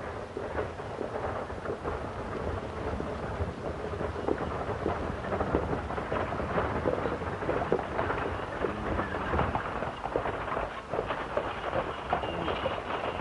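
Horse-drawn stagecoach rumbling and clattering, hooves and wheels together, with many sharp crackles through the noisy rumble; it grows louder over the first few seconds.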